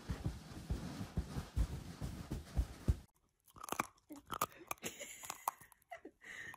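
A dog biting and crunching a slice of toast held to its mouth: short crisp crunches in an uneven string over the last few seconds. Before that, dull low thumps over a rushing noise, which stops abruptly about three seconds in.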